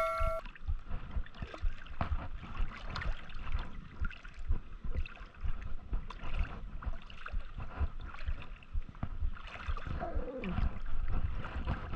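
Shallow seawater sloshing and lapping around a wading angler's legs, with wind buffeting the microphone in uneven low thumps.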